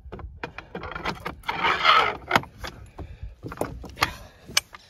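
Metal clinks and knocks as a heavy hydraulic track pin press, with its steel threaded rods and ram, is handled and set onto an excavator track link. A louder rushing noise comes about two seconds in.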